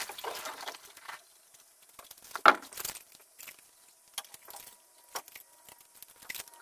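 Scattered light knocks and rattles of gear being handled around a small boat, with one sharp knock about two and a half seconds in.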